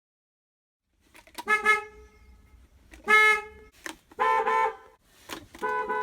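Horn of an IC Bus CE-series school bus sounded in a series of short honks, the first about a second in, each lasting under half a second, over a faint low rumble.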